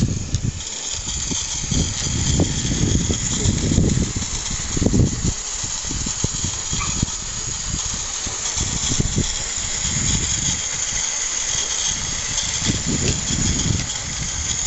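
Garden-railway model locomotive running along the track, pushing a test chassis, with a steady high whir from its drive and wheels over irregular low rumbling.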